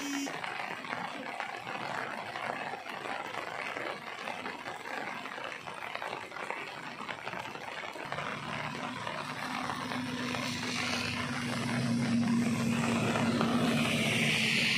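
Steady hiss of rain falling on floodwater, joined about halfway through by a steady low engine-like drone; the sound grows louder near the end.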